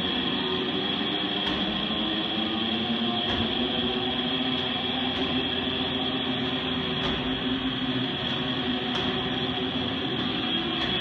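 Medicine ball wall balls: faint regular knocks about every two seconds as the ball is thrown up to the target and caught, under a loud, steady droning noise.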